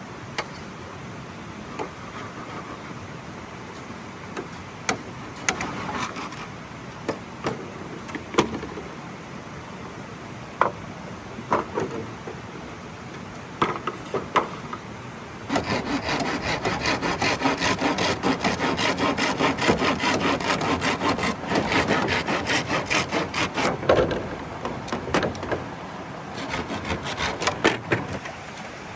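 Wood being cut by hand: scattered knocks and scrapes at first, then about ten seconds of fast, steady rasping strokes like a saw working through wood, then a few more knocks.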